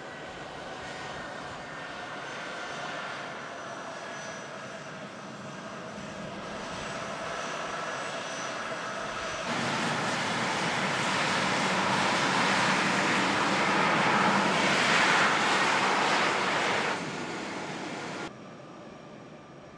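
C-17 Globemaster III's four turbofan jet engines running as it taxis: a steady whine with several high tones. About halfway in it becomes a much louder rushing roar, which drops away abruptly near the end.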